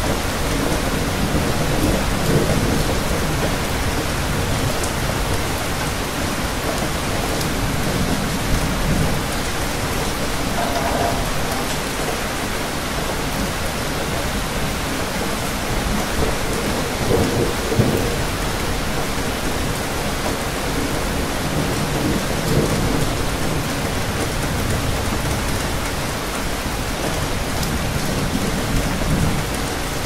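Steady rain falling, with low rumbles of distant thunder swelling several times.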